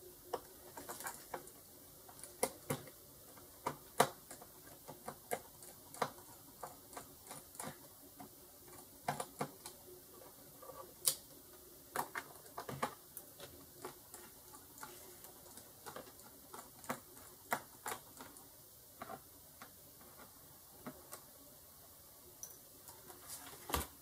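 Light, irregular clicks and taps, about one or two a second, of a small screwdriver and fingers working screws out of a laptop's plastic bottom case.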